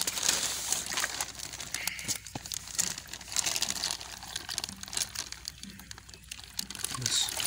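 Clear plastic fish bag crinkling and rustling in the hands in irregular bursts as it is handled and lowered into water.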